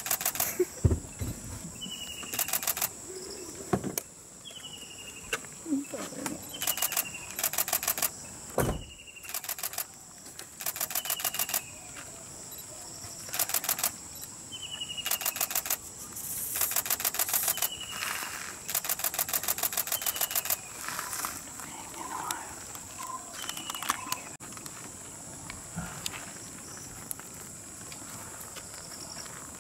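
Insects chirping in rapid ticking bursts about a second long, repeating every one to two seconds over a steady high hiss. A bird gives a short falling whistle over and over until about two-thirds of the way through. A few dull low thuds come in the first nine seconds.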